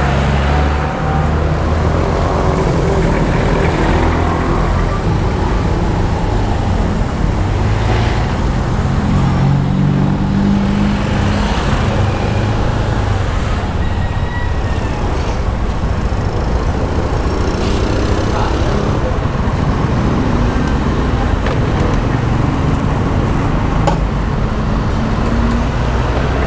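Riding noise from a Honda Genio scooter: its small single-cylinder engine running under steady wind on the handlebar-mounted camera, with street traffic around.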